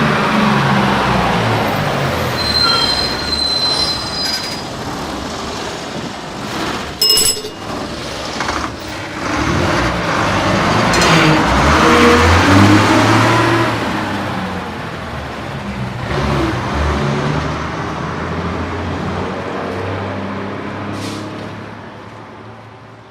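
School bus driving past on a road: engine and tyre noise, with brief high squeals a few seconds in and a short, sudden loud burst with a squeal about seven seconds in. The bus is loudest around the middle, then fades away toward the end.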